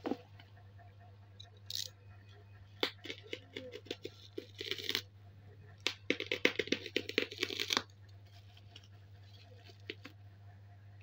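Plastic bubble-wrap packaging crinkling and crackling in irregular bursts as it is handled and worked open, the longest run of crackling about six to eight seconds in. A steady low electrical hum sits underneath.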